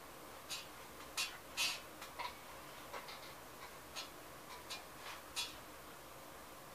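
A dozen or so light, irregular clicks and taps from painting tools being handled at the palette, over a faint steady hiss.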